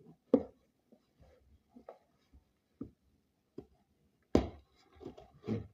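A cardboard package being handled on a hard surface: scattered knocks and clicks, with a loud thump about four seconds in and another just before the end.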